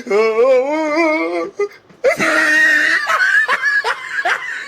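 Loud laughter: a long, wavering laughing cry, then a breathy outburst about two seconds in, then short giggles repeating several times a second.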